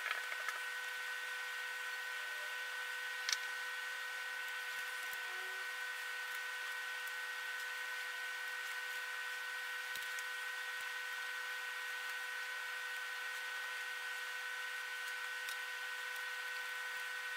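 Steady hiss with several faint, steady high hum tones. One small click comes about three seconds in.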